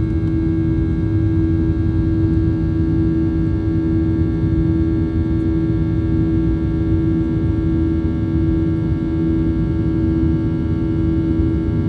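Boeing 737-800's CFM56-7B turbofan engines heard inside the cabin while climbing after takeoff: a steady low rumble with one strong constant hum and several fainter steady tones above it.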